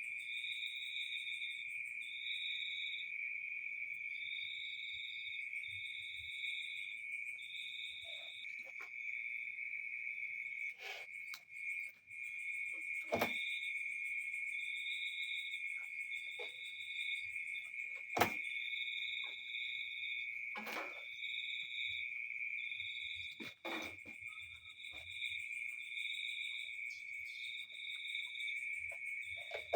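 Insects, likely crickets, trilling steadily with a higher chirp pulsing about once a second, broken by a few sharp clicks and knocks.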